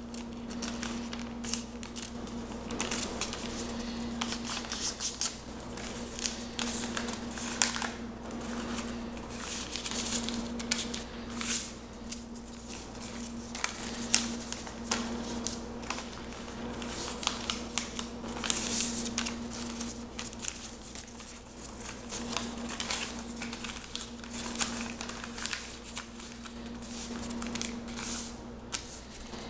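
A sheet of lined notebook paper being folded by hand: irregular rustling and crinkling, with sharper swishes as folds are pressed flat. A steady low hum runs underneath.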